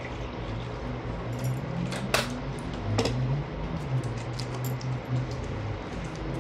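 Metal chopsticks and spoon clinking and tapping against bowls and dishes while eating, with two sharper clinks about two and three seconds in, over a low wavering hum.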